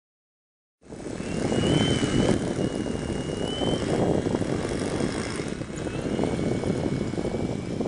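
Radio-controlled model airplane's motor running on the ground, a steady rushing sound with a thin high whine that shifts up and down in pitch a few times; it starts suddenly about a second in.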